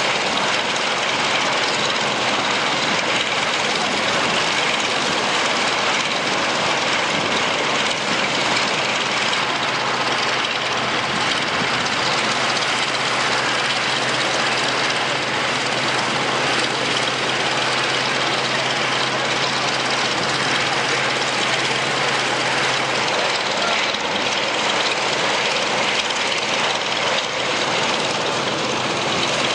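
Radial engine of a vintage biplane running at low power on the ground, a steady engine noise, with a low steady hum joining in for a while midway.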